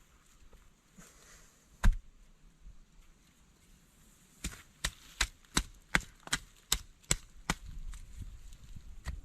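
Chopping strikes on wood: one hard blow about two seconds in, then a quick run of about nine sharp chops, roughly two and a half a second, and one more near the end.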